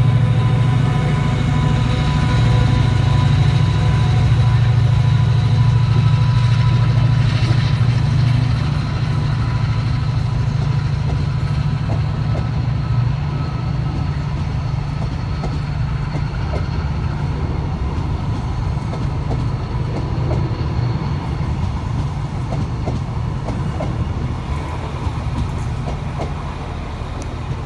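Class 68 diesel-electric locomotive's Caterpillar V16 engine running under power as the train pulls away, a deep steady drone with a whine over it. After about eight seconds the engine sound drops back and the coaches' wheels clatter over the rail joints, slowly fading as the train draws off.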